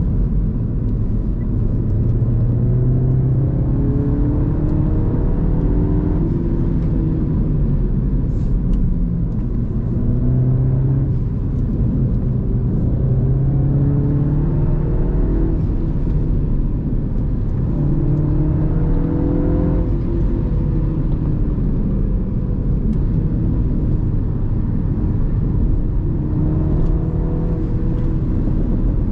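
Mini Cooper S F56's 2.0-litre turbocharged four-cylinder on its stock exhaust, heard from on board, pulling hard out of corners several times, its note rising through the revs and dropping back at each gear change, over steady road noise.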